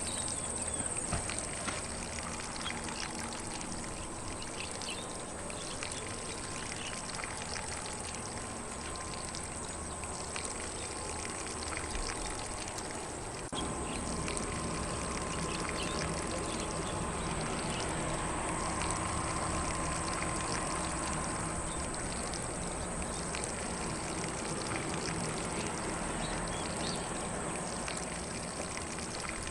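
Lawn sprinkler spraying water across grass, a steady hiss of falling spray that grows slightly louder about halfway through, with faint bird calls in the background.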